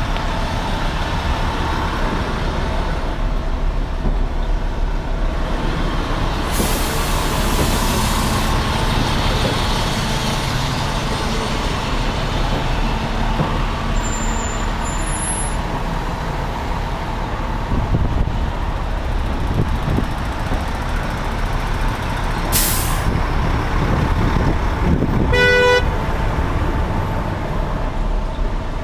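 Heavy fire apparatus diesel engines running in street traffic, with two hisses of air brakes releasing and a short horn toot near the end.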